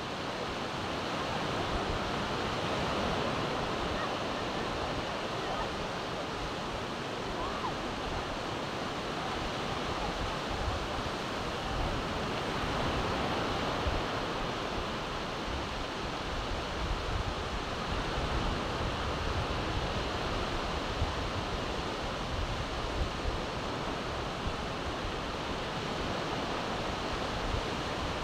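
Steady wash of ocean surf breaking on a wide sandy beach, with wind buffeting the microphone in uneven low gusts.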